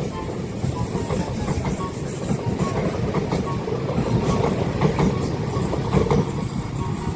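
Train running past on the rails, steady rumble with the wheels clacking over rail joints again and again.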